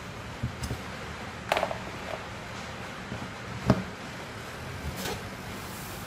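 Light clicks and knocks from hands handling a small USB humidifier and its cable on a desk, with one sharper knock about three and a half seconds in, over a steady hiss.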